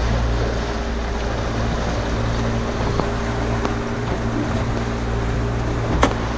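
Honda outboard engine running steadily, under wind and water noise. A sharp knock near the end.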